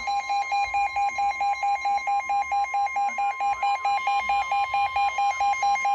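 Weather radio alert: the steady NOAA Weather Radio warning alarm tone near 1 kHz, with a rapid electronic beeping of about five or six beeps a second over it, signalling an incoming warning broadcast.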